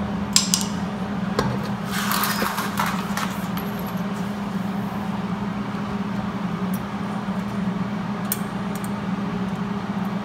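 A steady low machine hum, with scattered metal clinks and rustling as gloved hands handle a MIG welding gun and its cable into position for welding.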